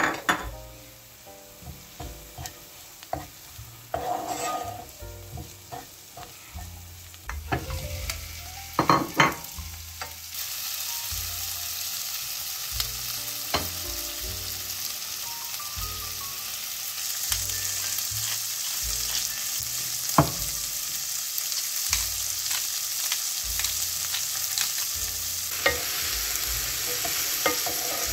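Cooking in a frying pan: scattered knocks and clatter, then, about ten seconds in, a steady sizzle of tomato wedges frying in hot oil with onion and garlic, which grows louder part-way through. A wooden spatula knocks now and then against the non-stick pan as it stirs.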